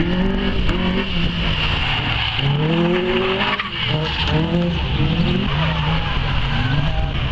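Race car engine revving hard and dropping back through gear changes, its pitch climbing and falling several times as it drives a time-attack course.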